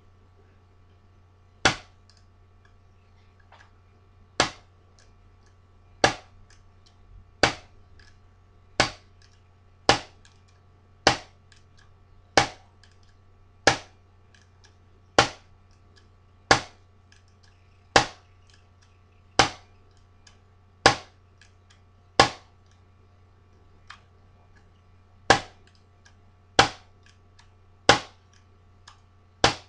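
A bump key in a pin-tumbler deadbolt being struck over and over, giving sharp metallic knocks about every second and a half, with a short pause near the end. These are repeated bumping attempts on the locked deadbolt with a homemade WR5 bump key.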